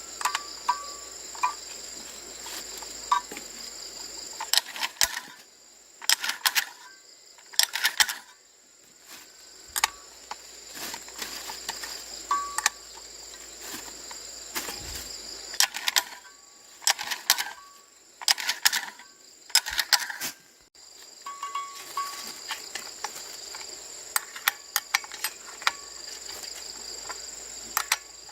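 Insects shrilling steadily at a high pitch, with repeated sharp clicks and taps that come in clusters.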